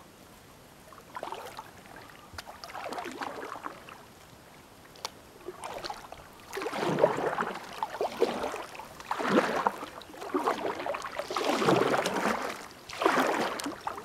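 Kayak paddle strokes in the water, a swish and splash about every second, faint at first and louder from about six seconds in.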